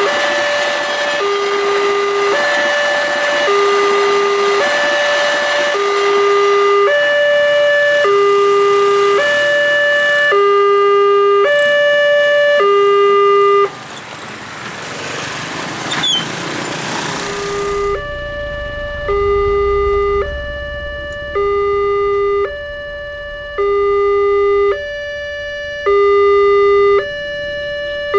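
Railway level-crossing warning alarm sounding a repeating two-tone signal, a low note and a higher note alternating, over the noise of a passing train. It stops about 14 seconds in, a few seconds of road noise follow, and the alarm starts again about 18 seconds in.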